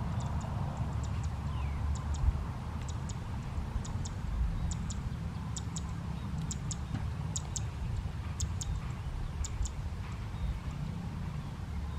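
Low wind rumble on the microphone, with a regular run of sharp, high double clicks about once a second, loudest in the middle.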